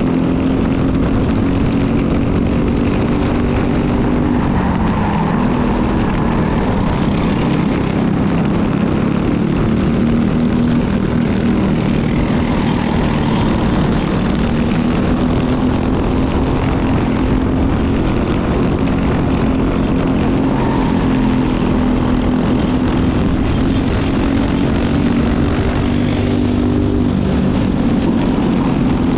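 Briggs & Stratton LO206 single-cylinder four-stroke kart engine running at racing speed, heard from on board the kart. Its pitch dips a few seconds in and again near the end as it slows for corners, then climbs back under acceleration.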